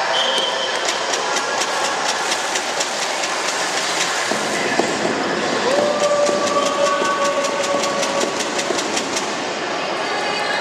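Spectators' din in a sports hall: a steady wash of voices with a couple of long held shouts, and two runs of fast, even clacks at about six a second, in the first half and again in the second half.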